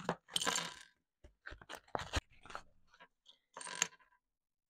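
A cardboard LEGO minifigure blind box torn open with a rustle, then small plastic LEGO pieces clicking and clattering onto a wooden tabletop, with a short rustle of packaging near the end.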